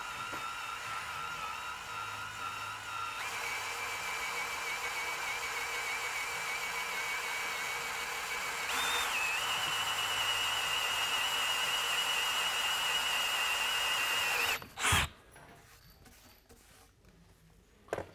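DeWalt cordless drill boring a 3/8-inch spade bit into softwood: a steady motor whine with the bit cutting wood, stepping up in pitch twice as the drill speeds up. The drill stops about 14 seconds in, followed by a short loud knock.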